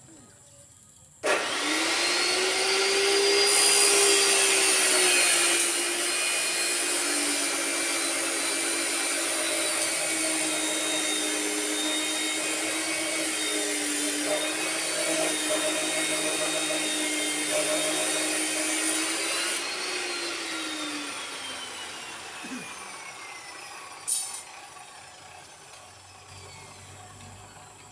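Handheld electric power saw switched on about a second in, running with a steady high whine whose pitch sags and wavers as it cuts, then switched off at about twenty seconds and spinning down with a falling whine. A single sharp knock follows a few seconds later.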